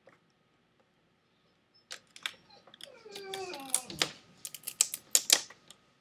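Irregular crackling clicks of adhesive shielding film being peeled and pried away from the edge of an LCD panel, starting about two seconds in, with a brief creak that falls in pitch partway through.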